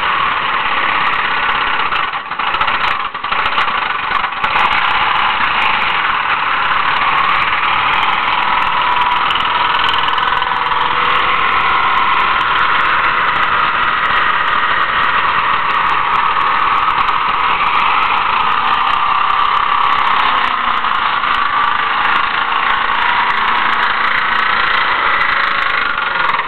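Mercury Grand Marquis V8 held at high revs through a burnout, the spinning rear tyres squealing steadily, with the rod knock of a failing connecting-rod bearing in the engine. The sound cuts off suddenly near the end.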